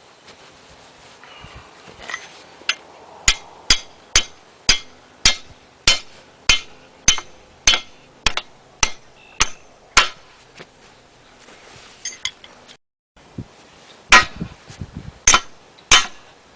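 Hammer blows on metal, a steady series of about fifteen sharp strikes a little under two a second, then a short pause and a few louder strikes near the end.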